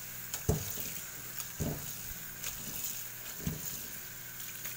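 Tap water running steadily into a stainless steel sink and mesh strainer while a hand rinses and squeezes cooked rice vermicelli. A few soft knocks come about half a second, a second and a half, and three and a half seconds in.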